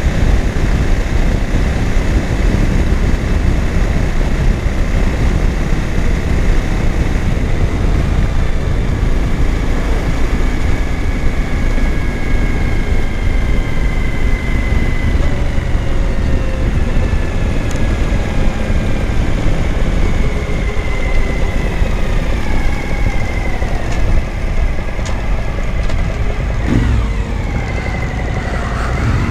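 Suzuki V-Strom 1000 V-twin motorcycle under way, heard from the rider's helmet camera: steady wind and road noise with the engine's pitch slowly drifting and falling as the rider rolls on and off the throttle.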